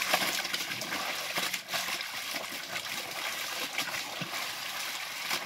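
Water splashing, dripping and running as clothes are hand-washed in plastic basins: wet clothes lifted out and scrubbed, and wrung so the water pours back into the buckets, in an uneven series of splashes.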